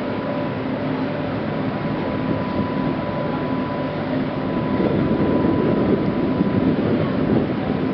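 Steady mechanical droning of the Niederfinow ship lift's machinery as the trough rises, with a thin steady whine running through it; the noise gets louder about five seconds in.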